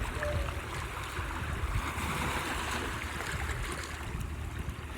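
Sea surf washing in steadily, with wind rumbling on the microphone.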